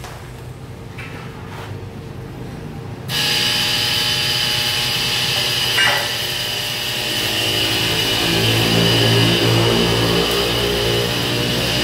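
Handheld angle grinder grinding steel. It starts suddenly about three seconds in with a steady high whine over a rasping hiss, and a lower rumble joins later on. Quieter metal-shop noise comes before it.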